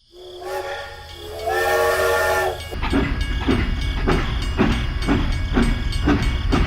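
A whistle sounds in two long held blasts, then steady mechanical chugging with a low hum and regular knocks about twice a second.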